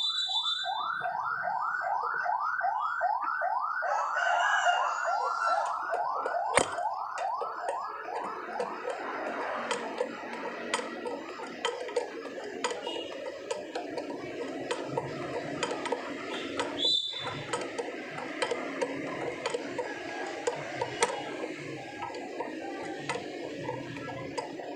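An electronic siren or alarm yelps in quick rising sweeps, about three or four a second, then blurs into a steadier wail about eight seconds in. Light metallic clicks from the wrench turning the gear puller's screw come and go underneath.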